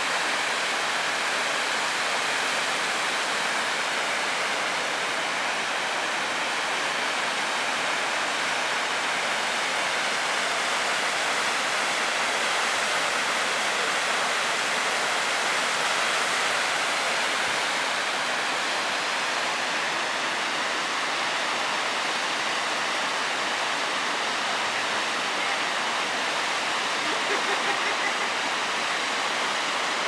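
Waterfalls rushing into a river: a steady, even wash of falling water.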